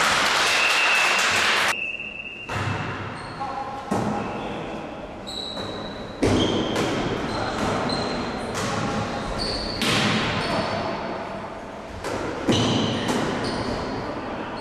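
Volleyball rally in a gym hall: the ball is struck several times, each hit a sharp smack that echoes around the hall. Between the hits come voices calling out and short high squeaks of sneakers on the court floor.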